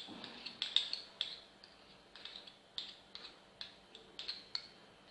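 A spoon clinking and scraping against a small dish in a quick, irregular series of light taps as a spoonful of honey is worked off onto a boiled garlic clove.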